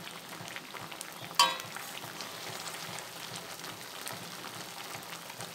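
Ridge gourd peels boiling in water in a steel wok, with a steady bubbling crackle while a steel spatula stirs them. About a second and a half in there is one short metallic clink.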